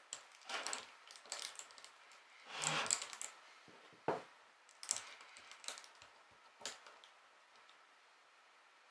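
Small metal sailboat-winch parts clicking and clinking against each other as they are handled and fitted onto the winch's splined center stem. Light clicks, then a longer rattle about two and a half seconds in, followed by a few single sharp clicks a second or so apart.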